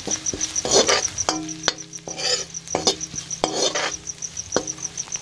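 Masala of onion and spice powders frying in oil, stirred in the pan: a series of scraping and knocking strokes of the utensil against the pan. A cricket chirps steadily in the background, about five pulses a second.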